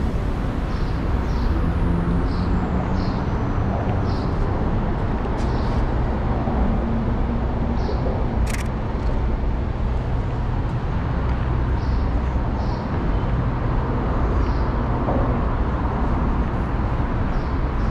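Steady city traffic noise, a continuous low rumble of passing vehicles, with one sharp click about eight and a half seconds in.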